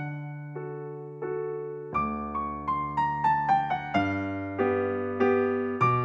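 Background piano music: a few slow, sustained notes over a low bass, then from about two seconds in a quicker run of notes stepping downward.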